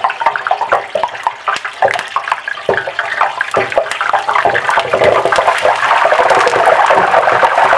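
Hot cooking oil, at about 400 °F, in an electric deep fryer boiling up violently around a melting ice cube, as the water flashes to steam. Crackling pops thicken into a loud, steady sizzle about five seconds in.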